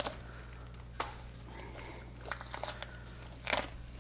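Handling noises from gloved hands pulling fat and tissue from a hanging skinned deer carcass: a few short rustles and sharp clicks, the loudest near the end, over a low steady hum.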